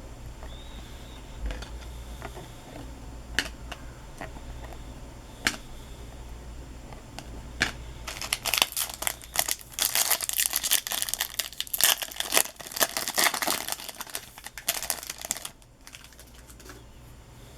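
A few sharp clicks, then several seconds of crinkling and tearing as a trading-card pack wrapper is torn open and crumpled; the crinkling stops shortly before the end.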